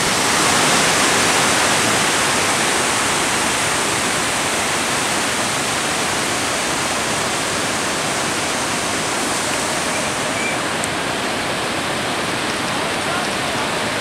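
Mountain waterfall cascading down a rocky stream bed: a steady, even rush of water.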